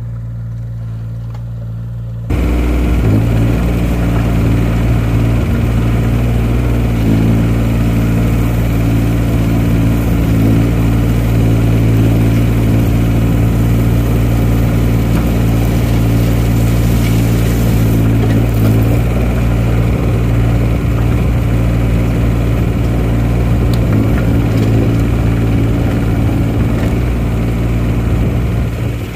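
JCB 8018 mini excavator's three-cylinder diesel engine running steadily while the machine works loose gravel. The engine becomes much louder and closer about two seconds in, as heard from the operator's seat.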